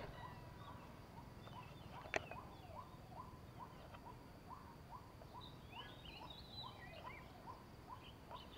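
Faint bird calls: a short rising note repeated over and over, about two to three times a second, with fainter higher chirps around the middle. One sharp click about two seconds in.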